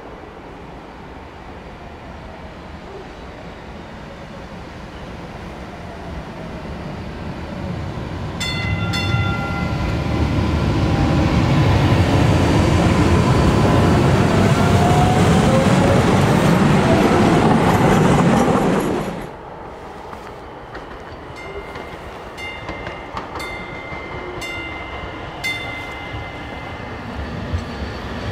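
MBTA Green Line light-rail trains passing at low speed. An approaching train grows louder and runs past with heavy wheel-and-rail rumble and a rising electric motor whine as it picks up speed. The sound then drops off suddenly to a quieter approaching train, with several short high-pitched signal tones.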